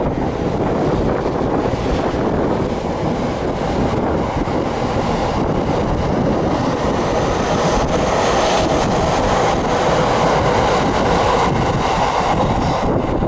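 An E231-1000 series electric commuter train pulling out of a station and rolling past: a steady, loud running noise of wheels and cars, with wind on the microphone.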